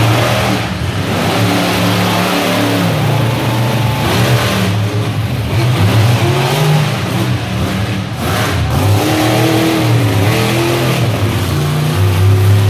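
Monster truck engines revving hard as the trucks run the track, the pitch climbing and falling again and again.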